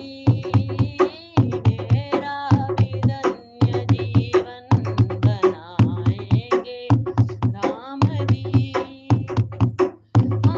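Indian devotional song: a sung melody over a steady drum beat.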